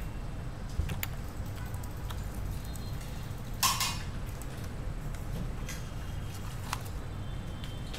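Steady low background hum with a few faint clicks and a brief rustle about three and a half seconds in.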